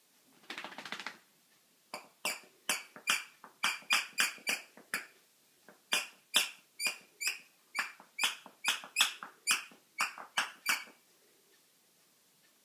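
Dog chewing a plush squeaker toy: about twenty sharp, high squeaks, two to three a second, stopping about eleven seconds in, after a brief raspy sound at the start.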